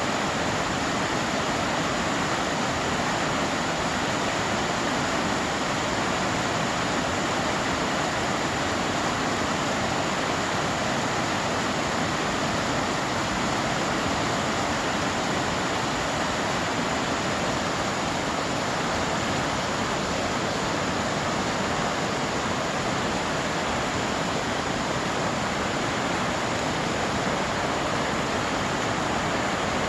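Running water of a stream, a steady, unbroken rush.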